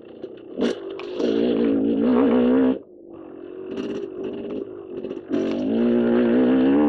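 KTM dirt bike engine on the trail: it picks up about a second in, eases off near the middle, then pulls hard and steady under throttle through the last part. A sharp knock sounds about half a second in.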